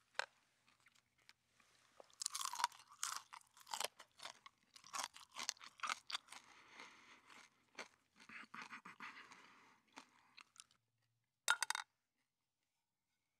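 A person eating crispy bacon and hash browns, with quiet, irregular crunching and chewing and a short louder burst near the end.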